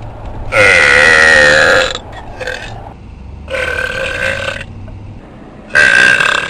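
A woman burping over and over: a long, loud burp lasting over a second, a short one after it, a quieter burp midway, and another loud burp near the end.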